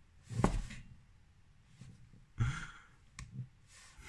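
A person's short breaths or sighs, about four of them with the first the loudest, and a single sharp click a little after three seconds.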